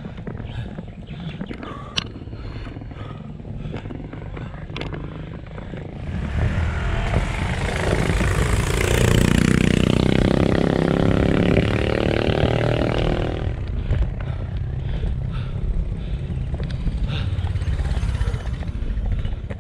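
A motorcycle engine passing: it grows loud about six seconds in, stays loudest for a few seconds and fades away about eight seconds later. Before and after it there is a quieter background with scattered light ticks.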